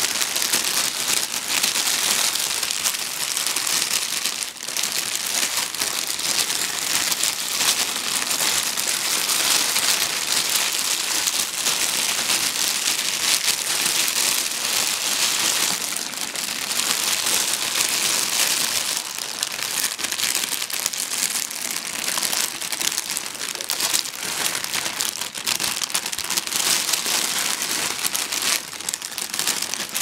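Thin plastic bag film crinkling and rustling continuously, a dense spray of fine crackles that rises and falls only a little.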